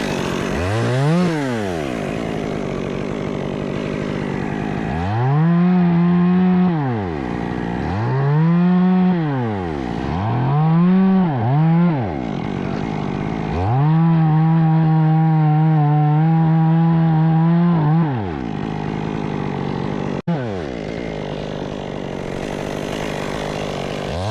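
Two-stroke chainsaw being revved from idle several times in quick throttle blips. It is then held at high speed for about four seconds, drops back to idle, cuts out for an instant, and revs up again near the end.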